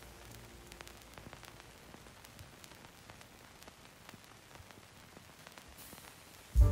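Faint static hiss with scattered crackling clicks in a gap in the background music. The music comes back in loudly with a deep low note just before the end.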